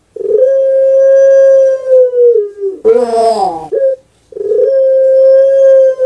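A caged puter pelung (Barbary dove) calling: a long, steady coo held for about two seconds, then a short, rough, wavering phrase about three seconds in, then another long held coo.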